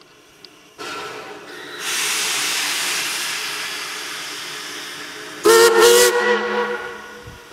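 Steam locomotive venting steam with a steady hiss that swells about two seconds in. About five and a half seconds in, its steam whistle blows once for about a second and a half, the loudest sound, then the hiss trails off.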